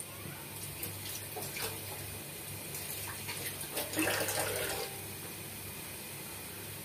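Soybean oil heating in a nonstick pan, giving a faint steady sizzle with a few soft crackles and a slightly louder patch about four seconds in.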